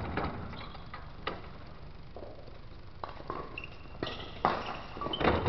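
Badminton rally: a series of sharp racket-on-shuttlecock hits about a second apart, with footsteps on the court; the loudest hit comes near the end.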